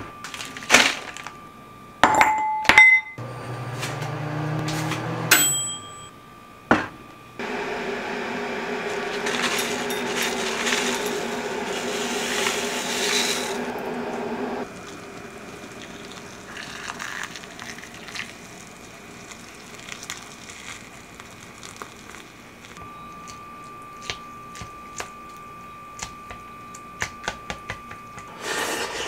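Kitchen handling sounds with a ceramic rice bowl: it is set down on a wooden counter and clinks a few times early on. A steady rushing stretch of about seven seconds follows in the middle. Near the end come light clicks and taps of wooden chopsticks stirring in the bowl.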